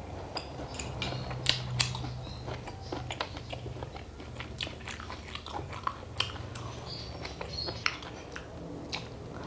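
Close-miked eating: chewing with many sharp, irregular wet clicks and smacks, over a faint low steady hum.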